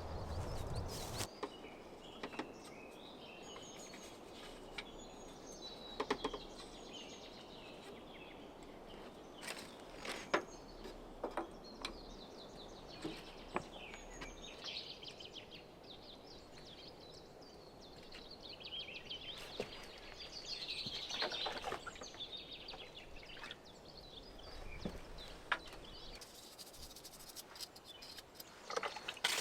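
Small birds chirping and twittering, thickest in a burst of song about two-thirds of the way through, over faint outdoor background noise with scattered light clicks.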